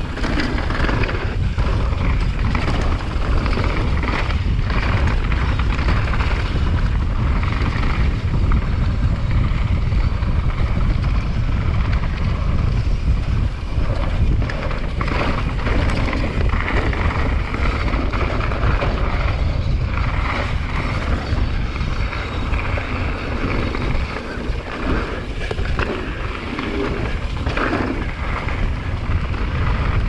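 Downhill mountain bike ridden fast over rough trail, heard from an action camera: heavy wind buffeting on the microphone over the hiss of tyres on dirt, with frequent knocks and rattles from the bike hitting bumps.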